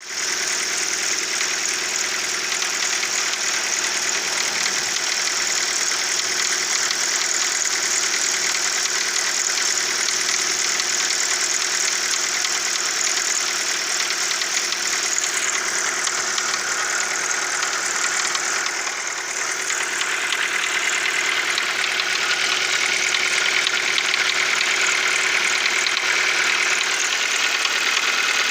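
Daewoo Lanos engine running steadily with a knocking and grinding noise from inside the engine, the fault the owner is showing.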